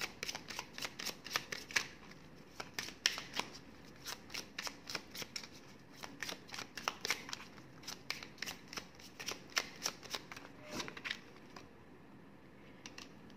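Tarot deck being shuffled by hand: a rapid, uneven run of card slaps and flicks that thins out over the last couple of seconds.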